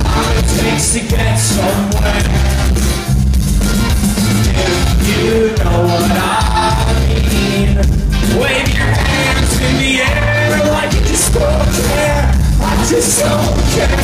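A live rock band playing loudly with lead vocals, heard from within the audience.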